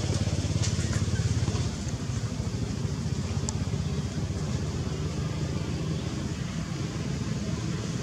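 Low, steady rumble of an engine running, a little louder for the first second and a half and then even.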